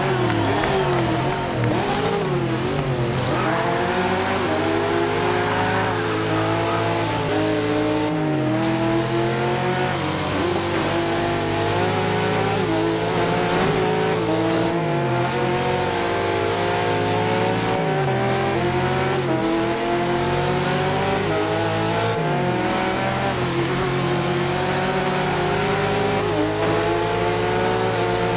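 Race car engine sounds: several engines revving, each pitch climbing and dropping back again and again, like cars accelerating and shifting through the gears, over a steady low hum.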